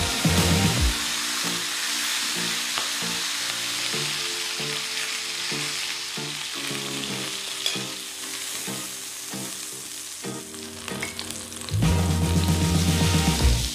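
Chicken pieces searing in hot fat in a cast-iron skillet, a steady sizzle, with tongs turning the pieces in the pan. Near the end a pat of butter sizzles as it melts in the emptied, hot pan.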